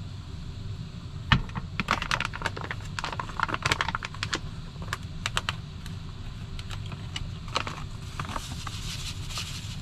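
A spatula clicking and scraping against a frying pan in irregular runs while kimchi is stir-fried in sesame oil, over a steady low hum. A hiss rises near the end.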